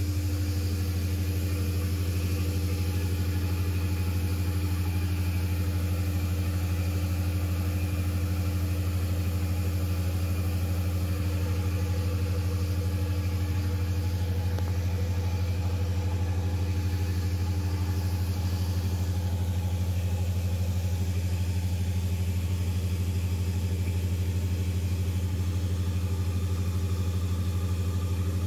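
Large natural gas engine-generator running steadily while supplying about 300 kW to the grid: a constant deep drone at one unchanging pitch.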